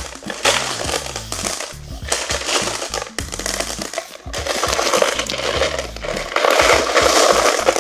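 Handling noise of a small plastic toy figure being moved about on a tabletop: scattered clicks and scraping with a rustling haze, louder near the end.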